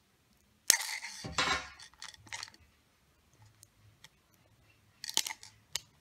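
Small packaging being handled and opened: a sharp click about a second in, then a second or so of crinkling and rustling, and a few more sharp clicks near the end.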